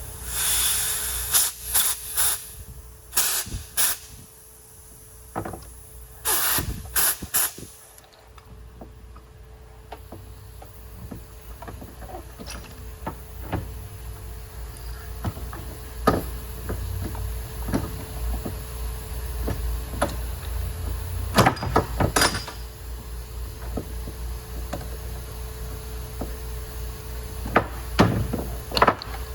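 Car engine idling steadily, with a hiss near the start and several sharp knocks and clicks scattered through.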